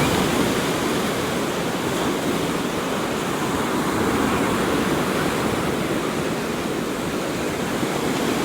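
Steady rush of ocean surf mixed with wind blowing across the microphone.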